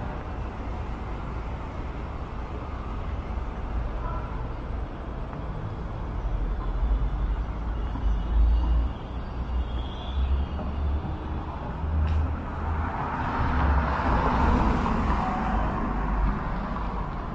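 City street traffic: a steady low rumble of passing vehicles, with one louder swell of vehicle noise about thirteen seconds in that fades a few seconds later.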